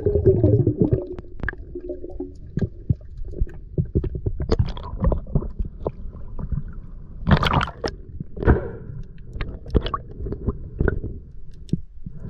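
Water gurgling and sloshing around an underwater camera housing, with a low rumble and many irregular sharp clicks and knocks. Two louder splashy bursts come about seven and eight and a half seconds in.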